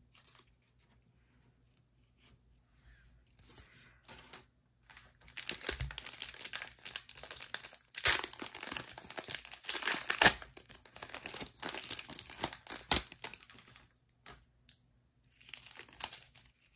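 Foil wrapper of a 2023 Score football card pack being torn open and crinkled, with a few sharp loud rips about halfway through. Softer handling of the card stack follows near the end.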